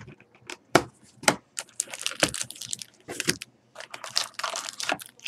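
A foil trading-card pack wrapper being torn open and crinkled, with a few sharp clicks as the pack and cards are handled on the table.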